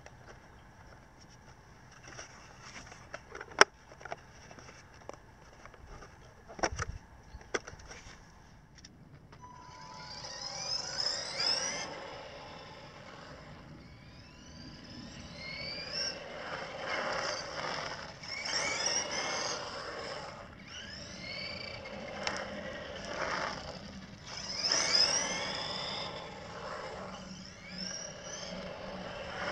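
A few sharp clicks and knocks as the hard body shell is handled and fitted onto the RC buggy's chassis. From about ten seconds in, the Tamiya DT-02 Rough Rider's stock 540 electric motor and steel pinion gears whine, rising and falling over and over as the buggy accelerates and slows.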